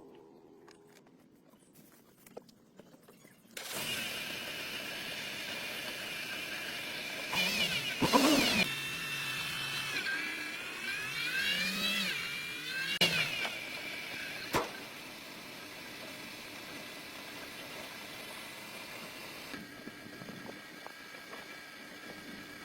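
Car engine starting suddenly a few seconds in and running steadily. Its pitch rises and falls twice as it is revved, with a few sharp clicks, and it settles lower near the end.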